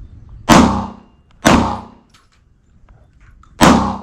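Three gunshots, the first two about a second apart and the third about two seconds later, each dying away in a short echo.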